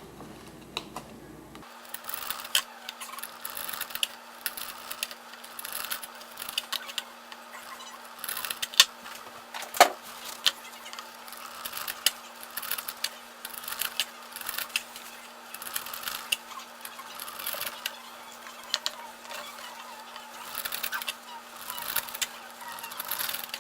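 Leatherman multitool knife blade making repeated cutting strokes: an uneven run of scraping slices and sharp clicks, one or two a second, with a sharper knock about ten seconds in.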